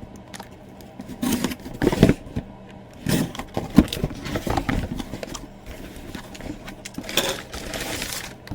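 A parcel being opened by hand: irregular scraping and rustling of packaging in short bursts.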